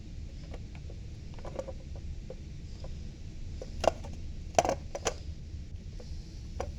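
Fire alarm parts being handled and fitted together, making scattered light clicks and clacks, with three sharper knocks about four and five seconds in, over a steady low hum.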